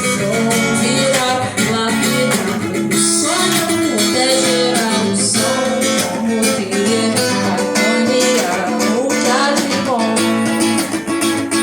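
Music led by plucked and strummed guitar, with a melody line that may be sung.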